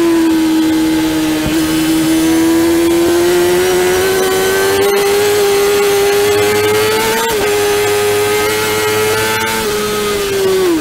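Honda CBR600F inline-four engine at high revs under hard acceleration, heard onboard with wind rush. Its pitch climbs steadily, drops sharply at an upshift about seven seconds in, climbs again, then falls near the end.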